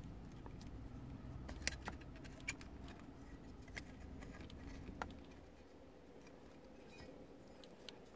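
Faint handling noises from the metal chassis and wiring of an Alpine car stereo: a few separate sharp clicks and light metallic rattles, the clearest about five seconds in, over a low steady hum.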